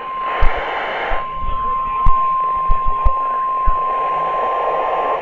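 NOAA Weather Radio's 1050 Hz warning alarm tone, one steady tone held for several seconds ahead of a new alert message, heard through radio static with several sharp crackles. It cuts off near the end.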